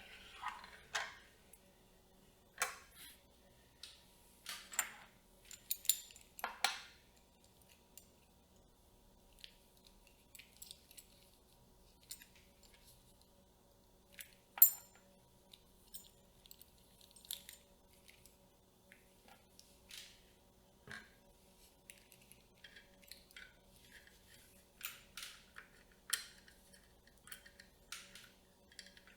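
Camera rig parts being handled and fitted together: irregular clicks, snaps and short scrapes, the loudest a sharp click about halfway through, over a faint steady hum.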